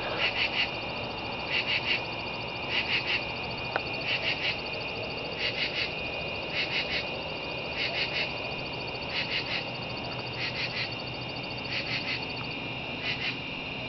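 Night frog chorus: short pulsed calls in groups of two or three, repeating about once every second and a quarter, over a steady high-pitched trilling drone.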